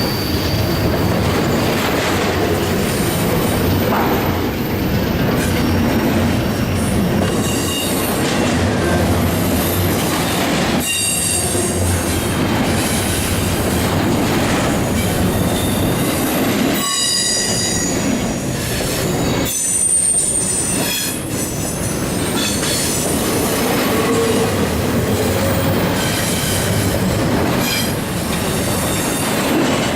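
CSX freight train's cars rolling past at close range in a steady, loud rumble. Wheel squeal comes and goes in high-pitched whines, over a clickety-clack of wheels on the rail joints.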